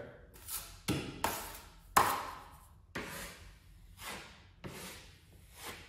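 Steel 6-inch taping knife scraping across wet joint compound on a drywall repair, in a series of short strokes about one a second, each starting sharply and fading.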